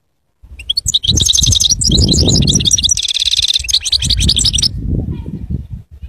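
Caged European goldfinch singing a fast, twittering song phrase of about four seconds, with a trill about three seconds in. A low rumble runs underneath.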